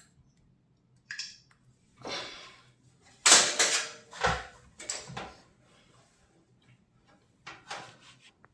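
Handling noises: a string of clatters, scrapes and clicks of hard objects being moved, the loudest a sharp clatter about three seconds in followed by a dull knock.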